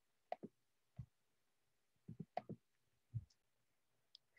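Computer mouse clicking against a quiet room: a run of short, sharp clicks, several in quick pairs, with a brief high-pitched blip near the end.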